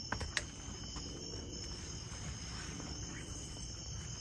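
Crickets chirping steadily in a night garden, a high continuous trill, with a couple of sharp clicks just after the start.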